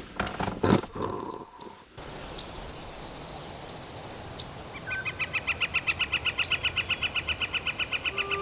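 Rustling of bedding and a few clicks as someone settles into a sleeping bag. Then, over a steady hiss, a rapid even chirping trill of about six or seven chirps a second, growing louder toward the end.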